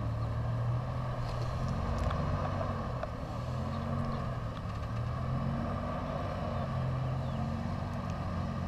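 Off-road rock crawler's engine running at low revs, its pitch rising and falling a little as the throttle is worked, with a few faint clicks over it.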